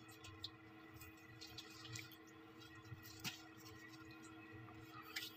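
Near silence: faint room tone with a steady low hum and a few soft clicks, the most distinct about three seconds in.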